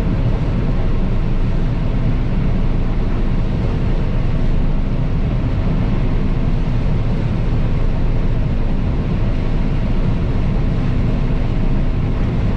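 Combine harvester running steadily while harvesting soybeans: a loud, even engine and threshing drone with a constant low hum.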